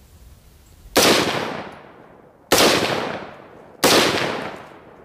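Three single shots from a Bushmaster XM15-E2S A2-style AR-15 rifle in 5.56 mm, fired semi-automatically about a second and a half apart, each sharp crack trailing off in a short echo.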